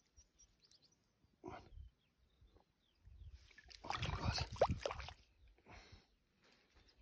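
Hand swishing and splashing in shallow lake water at the bank as a trout is released, loudest about three to five seconds in, with a short splash about a second and a half in.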